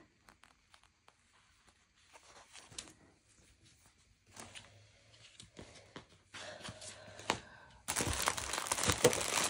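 Soft paper rustles and light taps, then from about 8 seconds in a loud crinkling of cellophane plastic wrap as a wrapped bundle of diamond painting drill bags is grabbed and handled.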